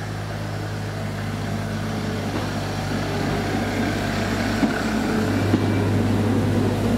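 Class 52 'Western' diesel-hydraulic locomotive D1015 running under power, its twin Maybach engines making a steady deep drone that grows louder as it approaches. A couple of short sharp clicks come in the second half.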